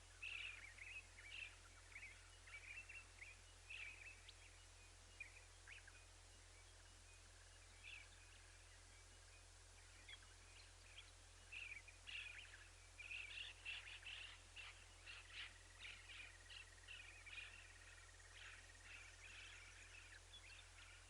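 Faint, quick bird chirps, repeated in irregular bunches and busiest in the second half, with one thin drawn-out whistle for a few seconds near the end.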